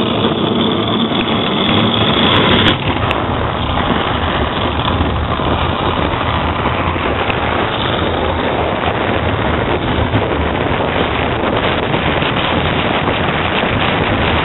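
Wheels of a wheelie bin rolling fast down an asphalt road: a steady, noisy rumble, with a brief jolt about three seconds in.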